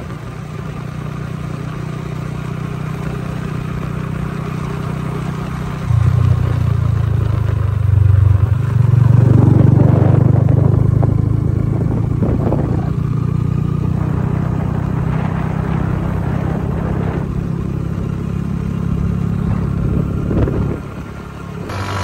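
A motor vehicle's engine running with a steady low hum, getting louder about six seconds in and loudest a few seconds later before easing off.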